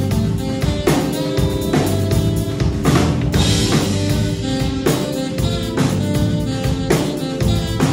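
Live jazz-funk band playing: drum kit with snare and bass-drum hits keeping a steady groove under electric bass, keyboard and saxophone.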